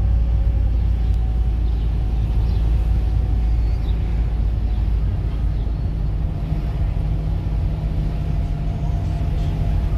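Car driving slowly along a street, heard from inside the cabin: a steady low engine and road rumble that thins a little past halfway.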